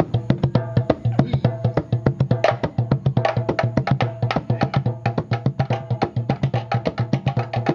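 A metal 50-gallon barrel and a paint can struck as hand percussion in a fast, steady rhythm of about eight strokes a second, with a low ring held underneath.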